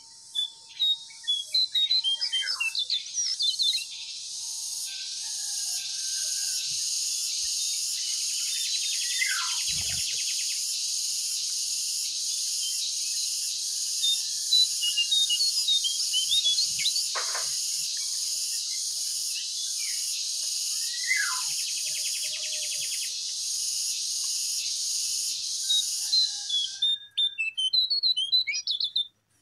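Lesser shortwing (cingcoang coklat) song on a bird-lure recording: sharp chirps and quick whistled up-and-down glides over a continuous high, rapidly pulsing buzz. The buzz comes in about four seconds in and cuts off suddenly near the end, leaving a few last chirps.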